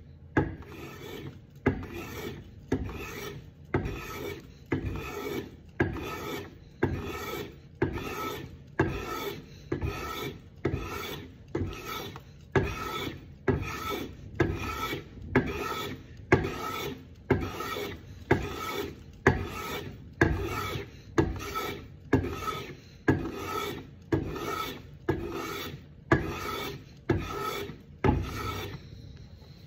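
Small hand plane shaving wood in steady, repeated strokes, a little more than one a second. Each stroke starts sharply and fades. The strokes stop shortly before the end.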